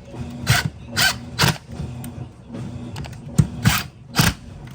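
About six short knocks and clunks of dishwasher parts being handled and fitted back together during wash-motor repair, over a steady low hum.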